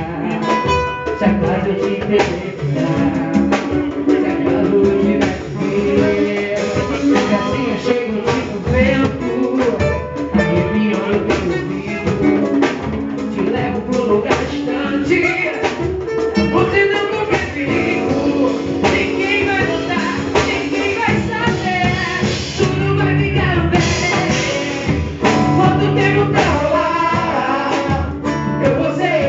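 Live band music at a soundcheck, with drum kit and guitar, and singing at times.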